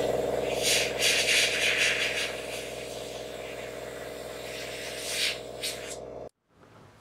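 Airbrush spraying paint in short hissing bursts over the steady hum of a small air compressor motor running; everything stops abruptly about six seconds in.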